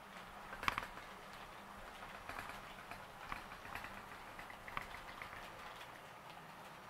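HO-scale Roco model train running on Geoline track, its wheels giving faint, irregular clicks over rail joints and points, the sharpest a double click about a second in.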